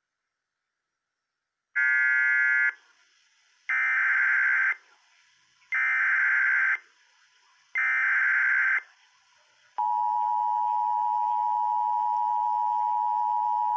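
Emergency Alert System tones announcing a National Weather Service flood warning: four roughly one-second bursts of digital data tones (the SAME header that encodes the alert), then, about ten seconds in, the steady two-tone attention signal.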